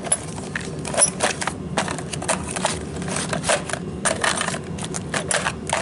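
Small metal tools, bearings and plastic packets clicking and clattering as a hand rummages through a steel machinist's tool chest drawer, in many quick, irregular clicks.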